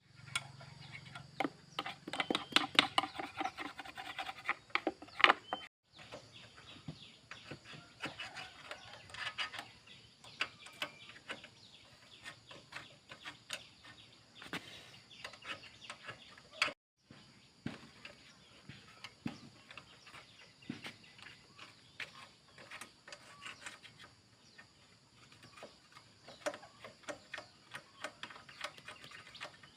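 Irregular light clicks and clinks of hand tools and small metal parts being handled while a motorbike is taken apart, busiest in the first few seconds, with two short breaks to silence.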